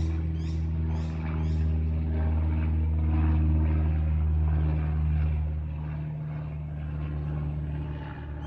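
A low, steady engine drone runs throughout. During the first two seconds it is joined by a rapid series of high, descending bird calls, about two a second.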